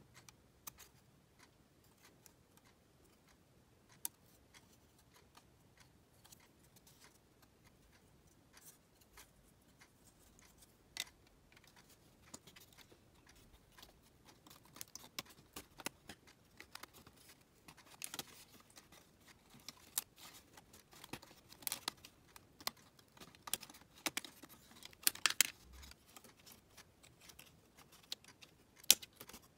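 Thin laser-cut plywood puzzle pieces being handled and pressed out of their sheet: light clicks, taps and small snaps of wood. They are sparse at first and come thicker in the second half, with a few sharper snaps near the end.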